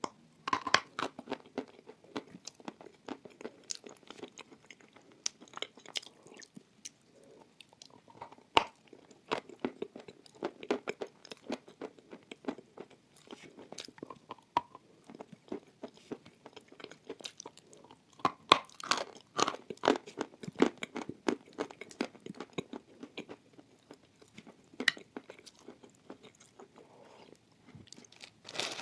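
Close-miked crunching and chewing of lumps of edible chalk coated in chalk paste: irregular sharp crackles as the chalk breaks between the teeth, with wet mouth sounds between them.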